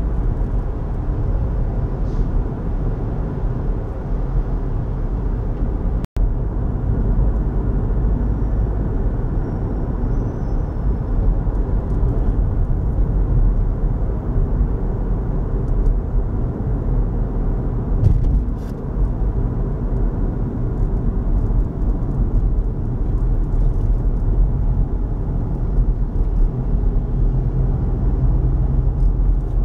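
Steady low rumble of road and engine noise heard from inside a moving car's cabin. The sound cuts out for an instant about six seconds in.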